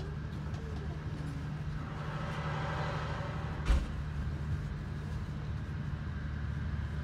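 Steady low rumble of a Talgo 250 'Strizh' passenger car running, heard inside the carriage. A hissing rush swells and fades in the middle, followed by a single sharp knock.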